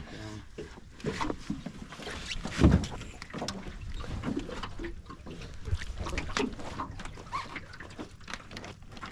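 Irregular knocks, clicks and scrapes on an aluminium boat hull as a crab drop-net rope is hauled in by hand over the side, over a low rumble of wind and water. A louder thump comes nearly three seconds in.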